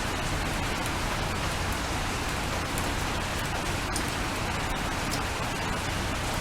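Steady rain falling, a constant even hiss with scattered faint ticks of individual drops.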